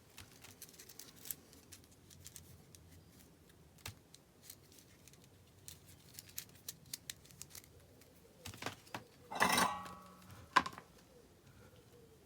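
Soldering iron and a Vaseline-coated wire being worked close up: scattered light clicks and taps, and one brief loud hissy burst about nine and a half seconds in, followed by a sharp click.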